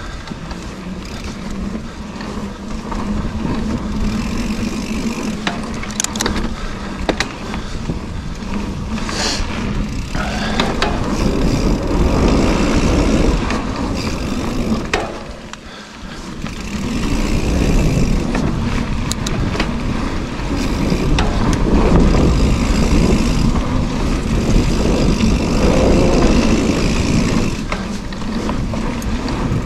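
Mountain bike descending a dirt singletrack: wind buffeting the camera microphone and tyres rolling over dirt, with scattered sharp clicks and rattles from the bike. The noise eases briefly about halfway.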